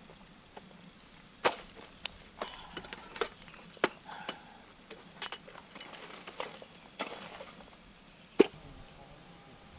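Dry sticks of firewood clattering and knocking together as they are dropped onto grass and sorted into a pile: a scatter of short, sharp knocks and cracks, the loudest one about eight seconds in.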